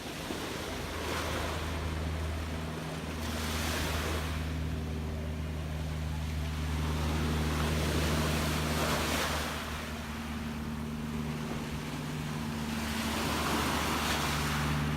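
Gentle sea waves washing in and out, about four swells rising and falling. A steady low hum runs underneath.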